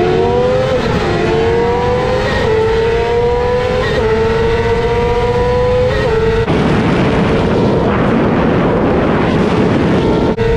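Sportbike's inline-four engine running at high revs under hard acceleration. The pitch climbs and dips at four quick upshifts in the first six seconds, then holds steady and high under heavy wind noise.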